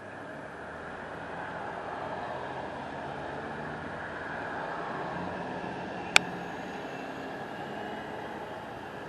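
A vehicle engine running with a steady rumble, swelling gradually towards the middle and easing off again, broken by one sharp click about six seconds in.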